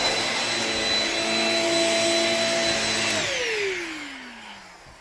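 The original Shark Rocket corded stick vacuum's motor runs with a steady high whine. About three seconds in it is switched off, and the whine falls in pitch and fades as the motor spins down.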